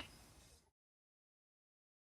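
Near silence: the last faint trace of the car engine fades out within the first second, then there is total silence.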